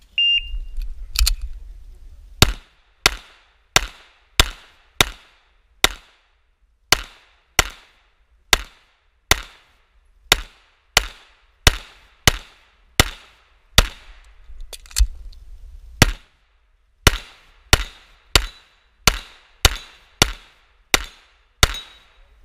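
A short electronic shot-timer beep, the start signal, then a pistol fired about two dozen times in quick succession, a shot every half second to a second with a few slightly longer pauses between strings.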